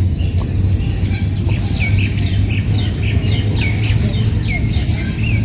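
Squirrel chirping: a rapid run of short, high chirps, about five a second, then separate calls that slide down in pitch. Under it runs a steady low hum.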